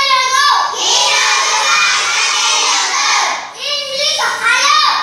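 A classroom of young children chanting phrases loudly in unison, with long drawn-out syllables near the start and again about four seconds in.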